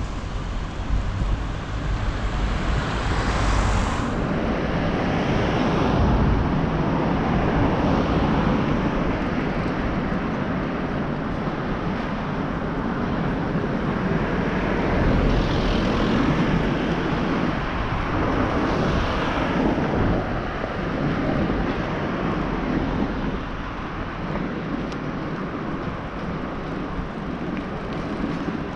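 Wind buffeting the microphone over road and tyre noise from a Mike Burrows 8Freight cargo bike, loaded with firewood, being ridden along.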